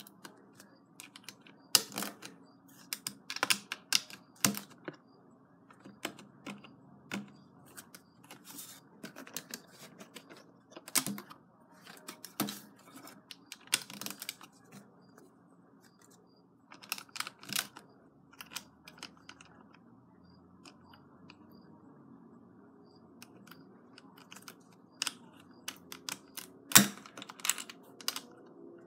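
LEGO plastic plates and bricks being handled and pressed onto a baseplate: irregular sharp plastic clicks and taps, the loudest one near the end.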